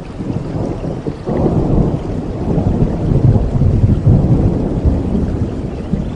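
Thunder rumbling low over steady tropical rain, swelling suddenly about a second in and easing off near the end.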